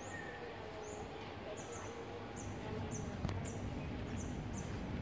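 A run of short, high chirps, about two a second, from a small bird, over a steady low hum of outdoor background noise.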